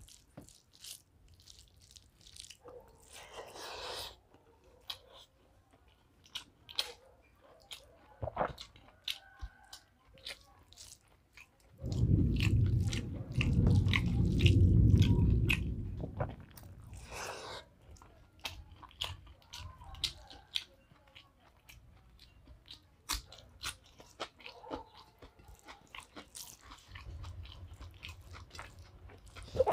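Close-miked chewing of a hand-eaten mouthful of rice, dal and fried aloo pakoda: many short wet mouth clicks, smacks and small crunches. About twelve seconds in, a loud low rumble lasts some four seconds.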